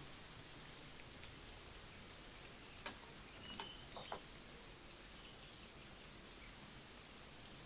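Quiet outdoor ambience: a steady faint hiss, with a few light clicks about three to four seconds in and a brief high chirp among them.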